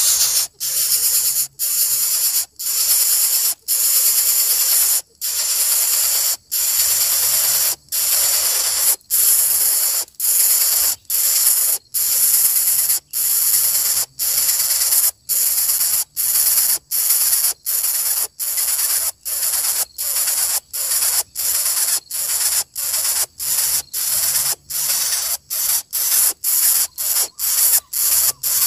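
Greater coucal chick hissing in a loud, high, even hiss, broken by brief pauses that come faster toward the end.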